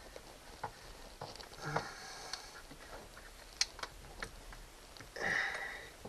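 Scattered light clicks and knocks of hands handling a boat's hydraulic steering cylinder, hoses and fittings, with one sharper click a little past the halfway point. A short breathy rush comes near the end.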